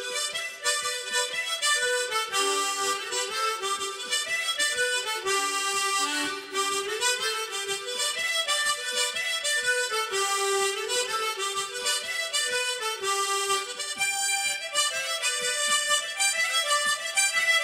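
Harmonica playing a quick, lively melody without a break, the notes changing several times a second.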